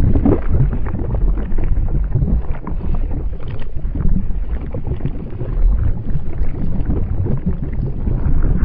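A steady, loud low rumble with rough crackling through it, dull in the highs.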